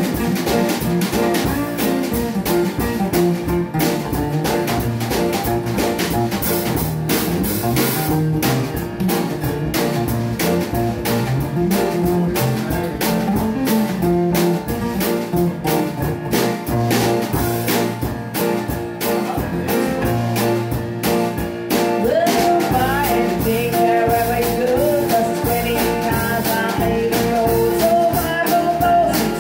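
Live band playing a country-blues song: strummed acoustic guitar, acoustic bass guitar, keyboard and drums in a steady beat. A singing voice comes in about three-quarters of the way through.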